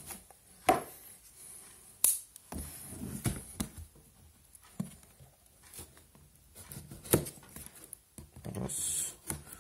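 Cardboard retail box handled and turned over in the hands: scattered taps and knocks with soft rustling between, and a short scraping rustle near the end.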